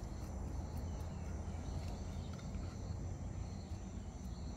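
Insects chirring steadily, with a low steady rumble beneath and a few faint scrapes of a knife cleaning small fish.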